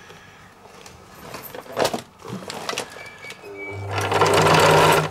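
Electric sewing machine stitching through cloth. After a few quiet handling clicks, the motor hums up about three-quarters of the way through and the machine runs fast and loud.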